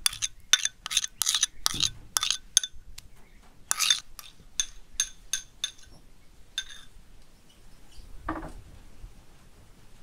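Metal spoon clinking and scraping against porcelain bowls while thick paste is spooned from one bowl into another. A quick run of light, ringing clinks comes in the first few seconds, then a few more, and a duller knock about eight seconds in.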